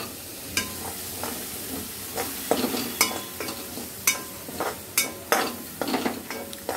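A spoon stirring and scraping around a metal pan, with irregular clinks against the pan, over the steady sizzle of chopped vegetables frying in butter.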